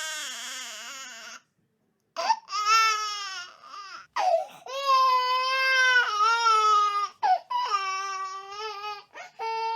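Baby crying in long, high-pitched wails with short gasps between them, stopping briefly about a second and a half in, then breaking into quicker sobs near the end.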